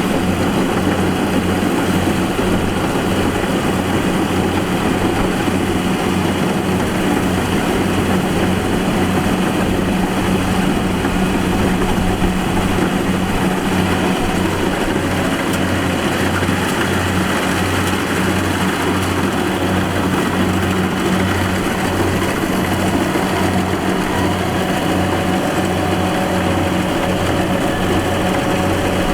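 Rice combine harvester's engine running steadily, with an even low throb of about two pulses a second under the mechanical clatter of the machine.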